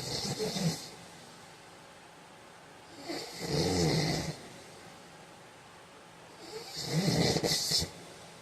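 A man snoring in his sleep: three snores about three and a half seconds apart, each a low rattle with a breathy hiss.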